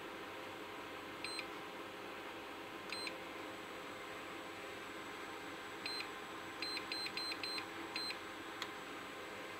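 HobbyKing ECO 6-10 balance charger's built-in beeper giving short, high beeps as its buttons are pressed: single beeps about one, three and six seconds in, then a quick run of five and one more. A single sharp click follows near the end.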